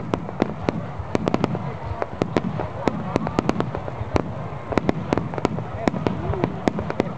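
Fireworks display: a rapid, irregular string of sharp bangs and cracks, several a second, over a steady low rumble.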